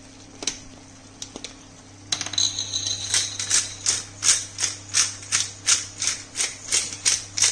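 Pepper mill being twisted over the pan, grinding pepper in a quick regular run of crunching strokes, about three a second, starting about two seconds in.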